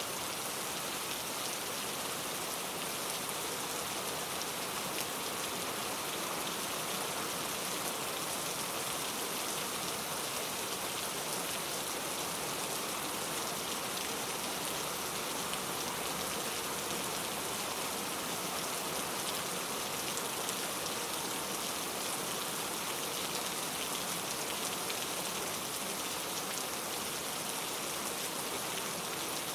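Heavy rain falling steadily, a dense even hiss with fine scattered drop patter throughout.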